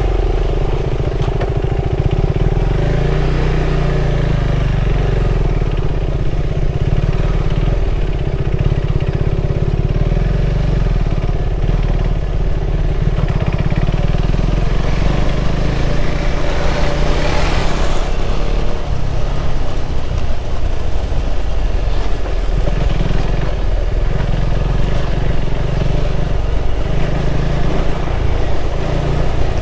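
KTM 390 Adventure's single-cylinder engine running steadily at low speed over a rough dirt road. A brief hiss lasting about two seconds comes a little past halfway.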